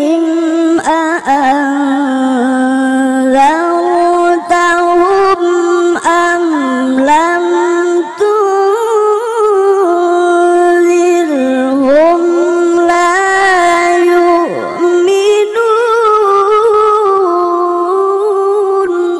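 A single voice reciting the Qur'an in the melodic tilawah style. It holds long notes and winds through ornamented turns that rise and fall, breaking off sharply at the end.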